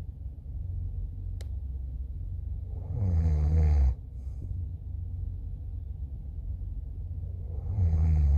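A person snoring, two snores about five seconds apart, over a steady low rumble. There is a single sharp click about a second and a half in.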